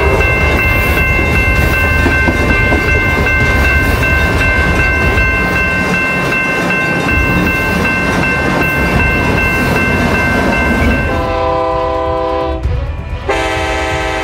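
A train running on the tracks, a steady loud rumble with a thin high whine over it, then two blasts of a diesel locomotive's air horn near the end, the second starting about a second after the first stops.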